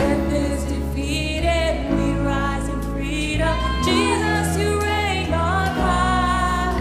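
Live worship band playing a praise song: a woman sings the lead melody into a microphone over electric bass and the rest of the band.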